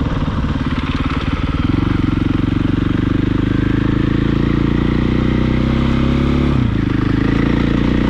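Dirt bike engine under way. The throttle opens about two seconds in and the pitch climbs steadily. It drops briefly near the end as the rider shifts up a gear, then climbs again.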